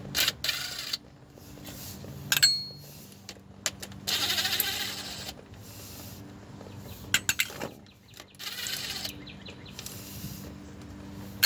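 Ratchet wrench buzzing in three short bursts as the 10mm transmission-pan bolts are run out, with a few sharp metallic clicks between the bursts.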